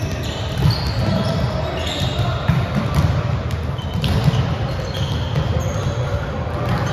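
Volleyball practice on a gym court: balls being struck and bouncing on the floor, sneakers giving several short high squeaks, and players' voices over a steady rumble of hall noise.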